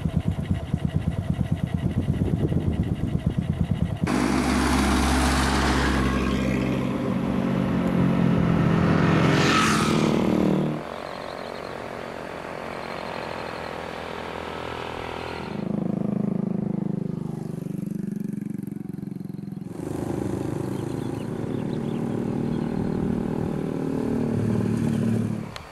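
Vehicle engines, heard in several cut-together segments: first a fast pulsing engine, then engines running with a rising rev about ten seconds in, and further steady engine stretches afterwards.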